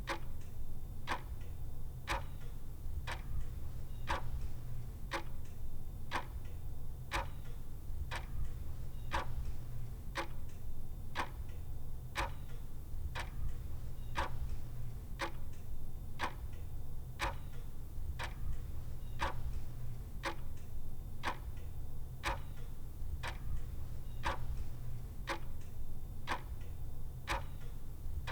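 Mechanical clock ticking steadily, about two ticks a second, over a steady low hum.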